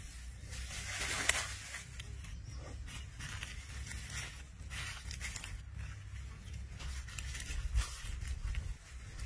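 Dry leaves and grass rustling and crackling as a monitor lizard and a cobra struggle on the ground, over a steady low rumble.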